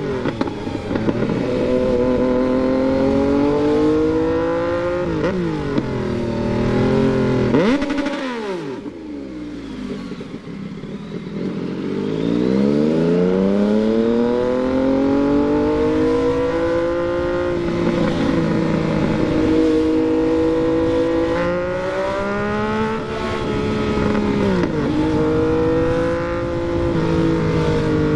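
Yamaha MT-09's inline three-cylinder engine while riding, its revs climbing and dropping through repeated gear changes. The revs fall off deeply about eight seconds in, then build up again from around twelve seconds.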